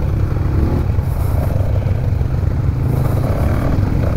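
Motorcycle on the move: a steady, loud low rumble of the engine and riding noise.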